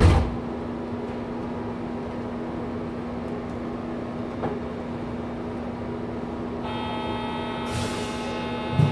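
Train standing at a platform with its passenger door open and a steady hum from the carriage, a thud at the very start. About two-thirds of the way through, a steady electronic buzzer tone starts and holds: the door-closing warning just before the door shuts, with a thump near the end.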